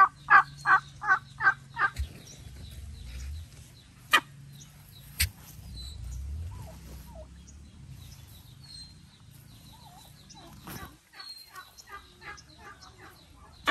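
Domestic turkey tom in strut calling: a rapid run of about seven loud notes in the first two seconds and a weaker run near the end, with two sharp clicks between them.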